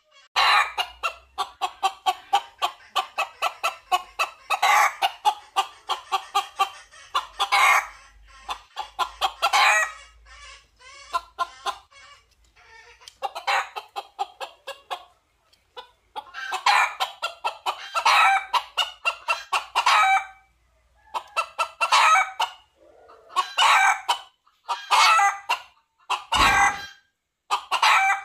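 Red junglefowl rooster calling in repeated bursts of rapid clucking notes separated by short pauses.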